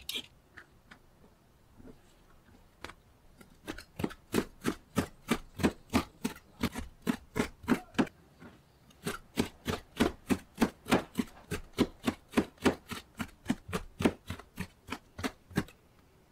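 Kitchen knife chopping sliced cucumber on a plastic cutting board. A few scattered taps come first, then from about four seconds in a steady run of quick knife strikes, about three to four a second, with a short break in the middle.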